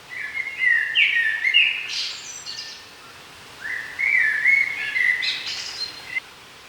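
A songbird singing two song phrases a second or so apart, each about two and a half seconds of quick notes that step up to higher notes at the end.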